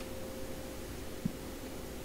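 Room tone: a steady faint hiss with a low, steady electrical hum, and one soft tap a little over a second in.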